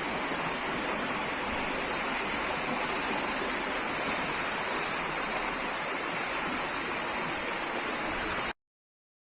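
A steady, loud rush of storm water, even and unbroken, cutting off suddenly near the end.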